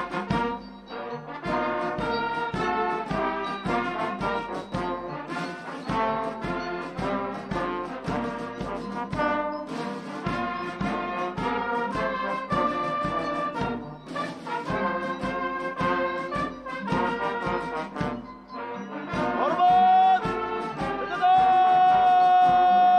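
Brass band music with a steady beat, ending on a long held note.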